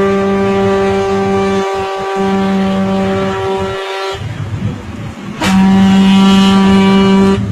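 Ship's horn sounding one long steady blast that cuts off about four seconds in, then a second, shorter blast about a second later.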